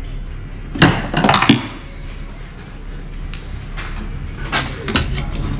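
A clatter of sharp knocks and clicks: a cluster about a second in and a few more near the end, from hands and tools handling car wiring and trim while stripping out and adding alarm wiring under the dashboard.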